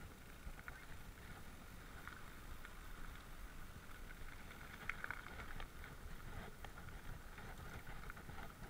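Mountain bike rolling over a dirt forest trail: a steady low rumble of wind and handling noise on the bike-mounted camera's microphone, with scattered small clicks and rattles from the bike.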